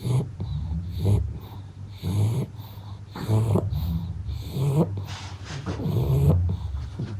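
A sleeping pug snoring and snorting, with a rasping breath roughly every second. This is the airway noise typical of the breed's short, flat-faced airway.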